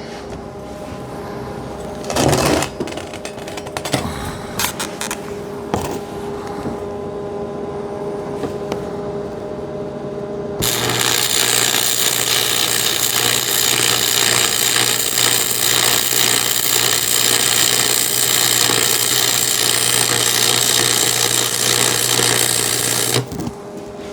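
Electric welding arc crackling steadily for about twelve seconds, starting abruptly about ten seconds in and cutting off sharply near the end. Before it, a few knocks and clicks of metal being handled over a steady machine hum.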